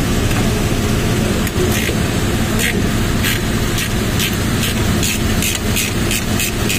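Socket ratchet on an extension bar being worked in short strokes, giving bursts of clicking that come quicker and quicker, at the oil filter of a Nissan Civilian bus's four-cylinder turbo engine. A steady low rumble runs underneath.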